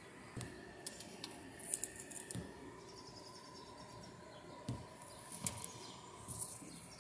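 Faint outdoor background with scattered bird chirps and a few light clicks and rustles.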